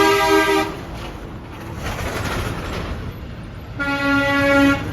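Semi-truck air horns honking: a two-note blast that cuts off under a second in, traffic noise, then a second, lower one-note blast of about a second near the end.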